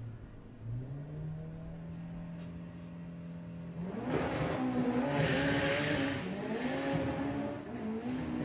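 Mark 1 VW Golf drag car's engine brought up to a steady, held rev on the start line. About four seconds in it launches: the engine note jumps louder as the car accelerates hard, with the front tyres scrabbling for grip.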